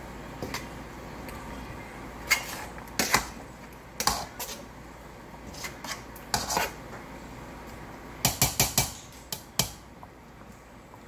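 Metal spoon knocking and clinking against the side of a stainless steel stockpot while stirring soup: scattered sharp clinks, with a quick run of four or five about eight seconds in.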